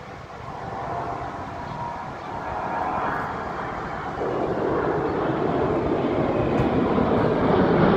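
Low fly-by of a Boeing C-17 Globemaster III military transport: the jet noise of its four turbofan engines swells, growing clearly louder from about four seconds in as the aircraft comes closer.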